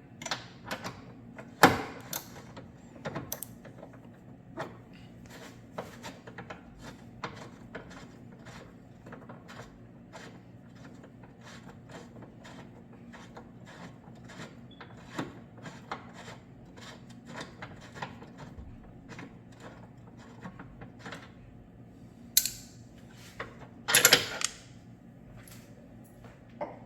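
Hand tools working on the motor mount bolts: many irregular metal clicks and small knocks, with a few louder metal clanks about two seconds in and twice near the end, over a faint steady hum.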